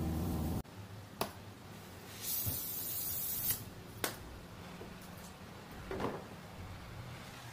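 A hand-held gas torch hisses for about a second as its flame is played over a plastic car bumper. Sharp clicks come before and after the hiss, and a soft knock follows near the end.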